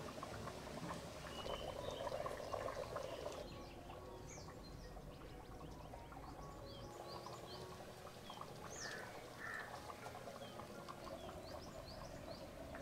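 Small birds chirping: many short, high, rising chirps repeating through most of it, over a faint low rustle and crackle that is loudest in the first few seconds.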